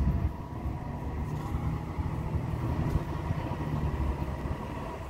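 Steady low rumble of vehicle engines in city street traffic.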